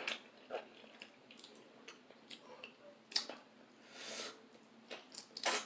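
Close-up eating sounds: soft chewing and wet mouth clicks, with a few sharp sudden sounds, the loudest about three seconds in and near the end, and a breath about four seconds in.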